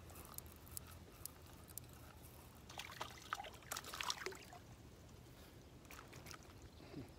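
Faint splashing and dripping of water with light clicks, bunched about three to four seconds in, as a hooked panfish is lifted out of the water on the line.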